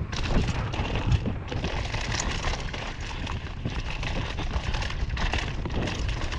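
NS Fuzz downhill mountain bike descending a dirt trail at speed: knobby tyres rumbling and crackling over dirt, roots and loose debris, and the bike clattering over the bumps, with wind rushing over the microphone.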